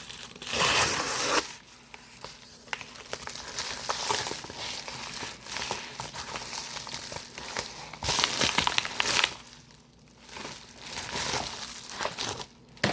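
Packaging being torn open and crinkled by hand. Two louder stretches of crinkling and tearing come about a second in and again about eight seconds in, with smaller crackles and rustles between them.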